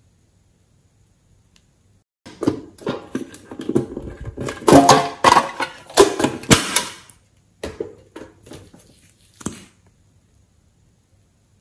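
Hands handling a hard plastic container, with a dense run of clicks and rattles starting about two seconds in and loudest in the middle, then a few scattered clicks near the end.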